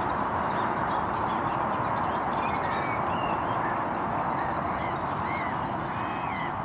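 Wild birds singing: a rapid high trill and short whistled phrases over a steady background hiss.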